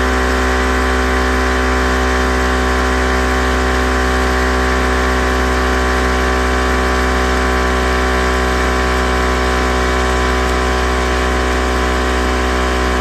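Portable air compressor running steadily as it inflates a car's spare tire, a constant motor drone that does not change in pitch.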